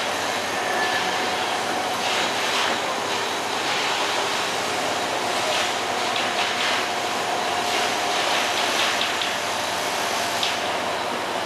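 Steady mechanical noise of heavy construction machinery at a steel-frame building site, with a faint whine in the middle.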